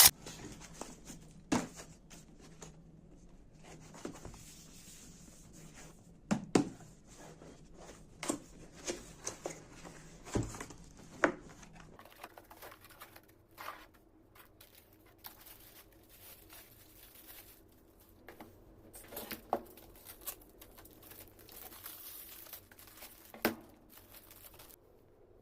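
Unboxing sounds: packaging crinkling and tearing, with scattered sharp taps and knocks as the box and keyboard are handled.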